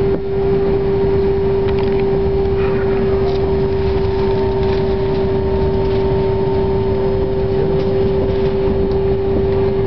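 Airliner cabin noise at the gate: a steady low rumble with one strong unbroken hum and a few fainter higher tones over it.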